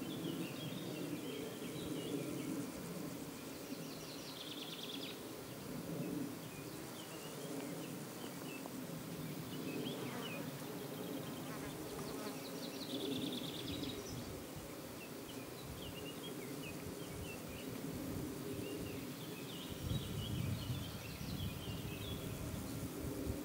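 Insect wings buzzing in a steady hum that wavers in strength as the insects move about the flowers, with clusters of short high chirps now and then.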